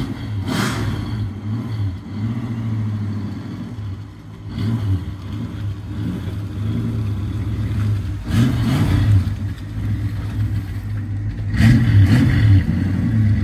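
1965 Plymouth Barracuda's engine and exhaust running as the car pulls out and drives slowly past, with a steady low hum that swells louder three times as the throttle opens: about half a second in, about eight seconds in, and near the end.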